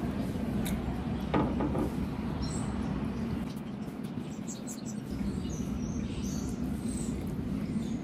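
Chewing and mouth sounds from someone eating a burger, with a few brief, faint high bird chirps over steady low background noise.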